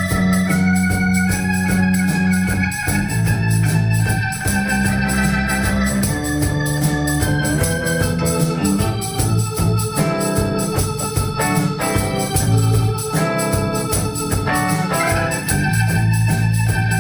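A band playing an instrumental piece on electric guitar and drums, with sustained organ-like tones. Held chords and melody notes change every second or so over a steady beat.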